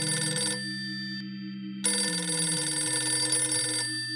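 Telephone bell ringing in long rings of about two seconds each, a call being put through: one ring stops about half a second in, and the next rings from about two seconds to nearly four seconds.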